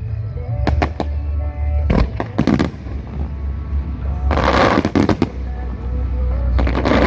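Fireworks going off: a few sharp bangs in the first three seconds, then two longer spells of crackling, about four seconds in and again near the end.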